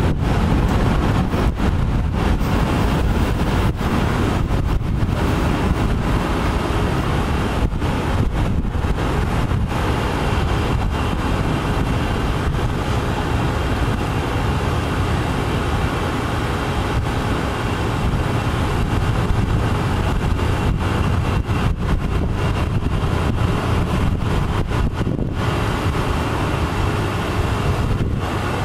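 Freight cars rolling past on the rails: a steady low rumble and rattle, with wind buffeting the microphone. The rumble stays just as loud after the last car has gone by.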